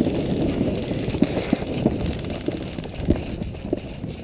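Footsteps on dirt, with gear rustling, picked up close on a body-worn camera as the player walks. There are irregular dull thumps, about two a second.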